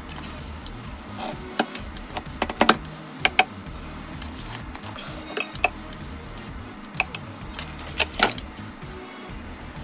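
Metal kitchen tongs clicking and tapping as they handle sardine fillets, a string of irregular sharp clicks, a few louder than the rest, over background music.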